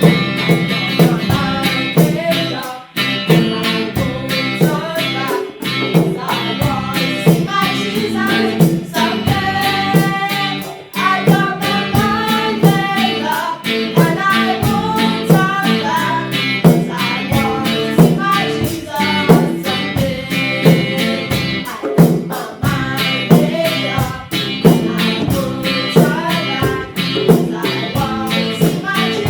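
A song: voices singing a melody over guitar and a steady beat.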